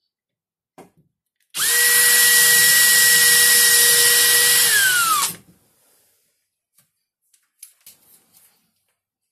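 Cordless drill running at a steady speed for about four seconds, its pitch dropping as it winds down at the end. A few faint clicks follow.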